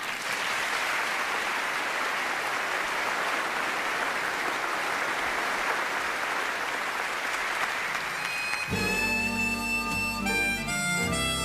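Audience applauding for about nine seconds, then instrumental music starts, held notes over a bass line.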